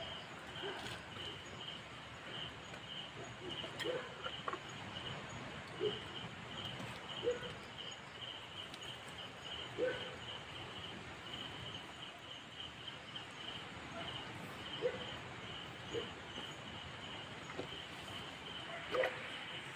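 Night insects chirping steadily, a high pulsing trill of about four pulses a second, with a few short faint low sounds now and then.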